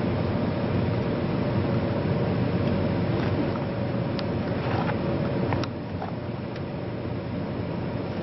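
Steady low mechanical-sounding background noise, with a few light clicks and taps of parts being handled about halfway through; the noise drops a little in level just after the middle.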